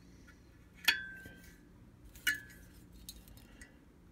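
Metal weather vane parts clinking together as they are handled: two sharp clinks with a brief ring, about a second in and just after two seconds, then a few lighter ticks.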